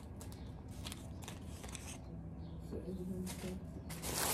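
Clear plastic garment bags rustling and crinkling in short, scattered crackles as packaged clothing is handled.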